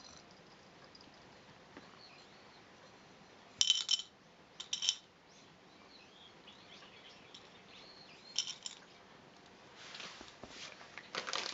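Dry cat kibble poured from a ceramic bowl, rattling into a bowl in two short bursts about four and five seconds in and once more a few seconds later. Near the end comes a dense run of quick clicks as a cat crunches the kibble.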